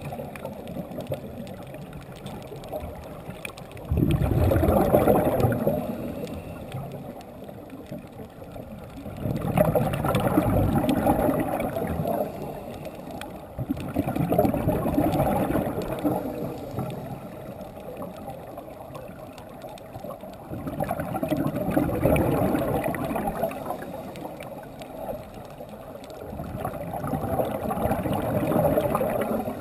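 Scuba diver breathing through a regulator underwater: five exhalations about every five to six seconds, each a gurgling rush of bubbles lasting two to three seconds, with quieter inhalations between.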